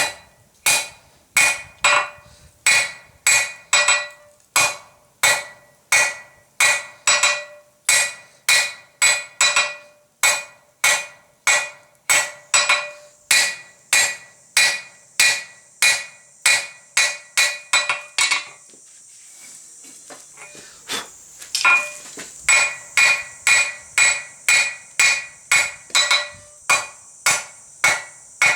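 Hand hammer striking a hot steel flat bar on an anvil, tapering the end to a point: ringing blows at about two a second, with a pause of about three seconds roughly two-thirds of the way through before the blows resume.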